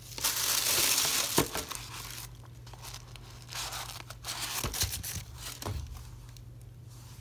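Tissue paper rustling and crinkling as hands dig through it in a shoe box, loudest for the first two seconds, then softer, scattered crinkles as a shoe is lifted out and handled.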